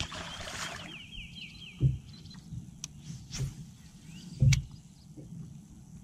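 A small bird chirping in quick falling notes over a short hiss for the first second, then two dull thumps, about two and four and a half seconds in, over a steady low rumble.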